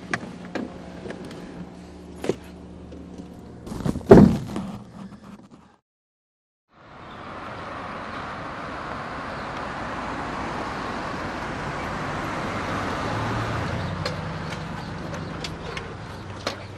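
Car door clicking open and slammed shut about four seconds in, the loudest sound here. After a second of silence, a steady rush of street noise, then a few light footstep clicks near the end.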